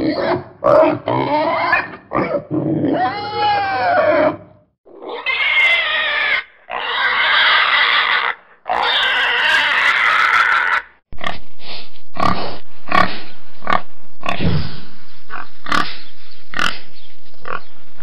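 Pigs grunting and squealing in several separate takes with short breaks between them; the cries rise and fall in pitch. In the second half comes a fast run of short grunts over a steady hiss.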